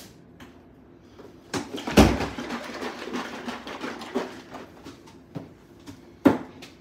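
Knife strikes on a wooden cutting board as squash is cut: a sharp chop with a heavier thump about two seconds in, a couple of seconds of irregular clatter after it, a few lighter taps, and another sharp chop near the end.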